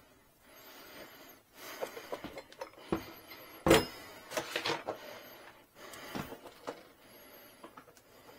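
A large sheet of perforated vinyl decal film and its backing rustles and crinkles as a hand squeegee is rubbed over it, in several short bouts, with one sharp click a little under four seconds in.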